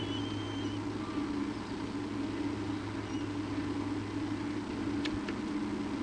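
A steady low hum, with a few faint, short high-pitched squeaks in the first second and two light clicks about five seconds in.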